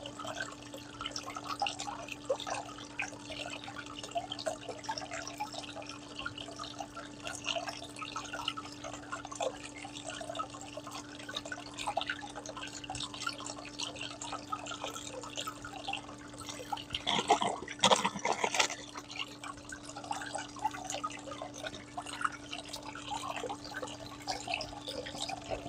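Water spraying and splashing inside a Goldbox gold concentrator as its jets swirl wet black sand under the clear cover, over a steady low hum from the pump. A few louder knocks come about 17 to 19 seconds in.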